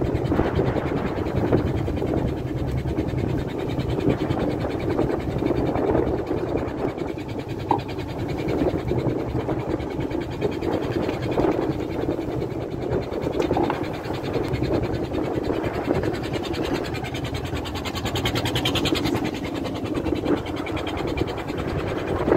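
A fishing boat's motor running with a steady rumble.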